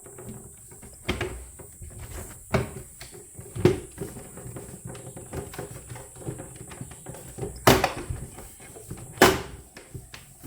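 Parts of a Breville Barista Express espresso machine's housing being handled and fitted back together: a handful of sharp knocks and clicks, the two loudest in the second half.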